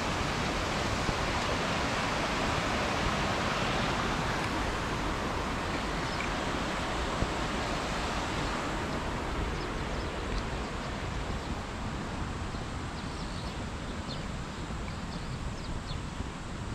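Mountain stream rushing in a gorge below a bridge, a steady hiss of flowing water that fades over the second half. A few short, high bird chirps come in over it during the second half.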